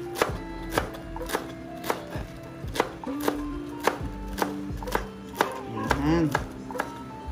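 Chef's knife slicing napa cabbage on a plastic cutting board: a steady series of sharp knocks as the blade meets the board, about two cuts a second, over background music.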